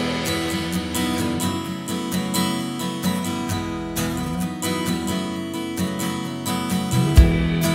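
Background music: strummed acoustic guitar playing steadily.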